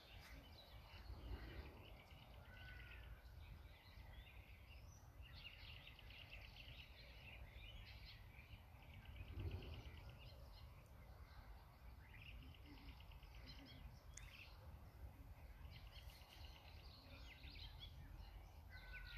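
Faint birds chirping and trilling in the trees over a low, steady rumble.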